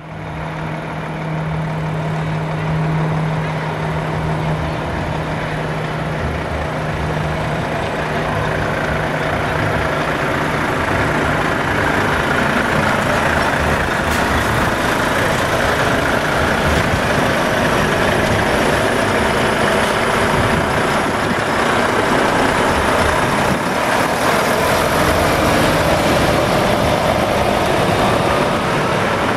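Heavy diesel engines of Volvo tractor units running at low speed as the trucks pull out and pass close by. A steady low hum at first, then the engine noise grows louder about ten seconds in and stays up.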